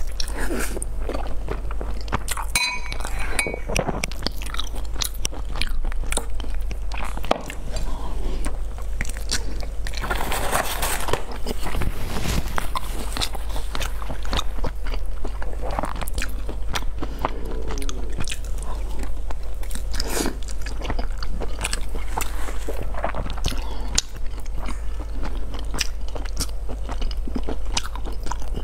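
Close-miked bites into and chewing of a dark rice sausage: wet chewing with many quick mouth clicks and smacks.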